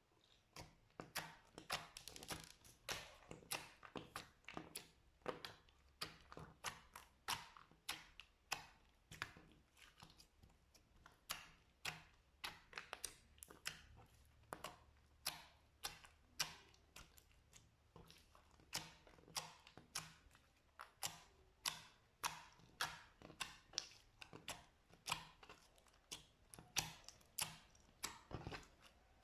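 Slime being pressed and worked, making a run of sharp, quiet clicking pops, about two or three a second.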